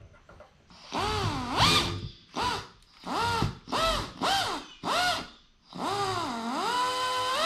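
Handheld drill with a number 41 bit drilling out an aluminum aircraft rivet from its shop-head side, run in about six short trigger pulses and then one longer run near the end. The motor whine sags and recovers in pitch within the pulses.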